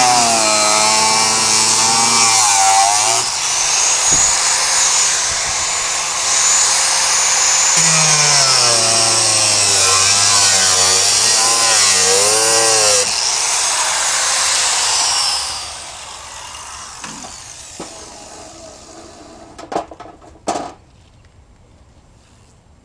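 A 4.5-inch angle grinder cutting into the thin steel of a small floor safe, its pitch dipping and recovering as the disc bites. It shuts off and spins down about two-thirds of the way in, followed by a few sharp knocks.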